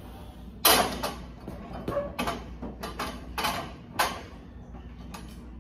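A lifter straining through barbell squat reps in a power rack: a sudden knock about half a second in, then a run of short, forceful breaths and a grunt between squats.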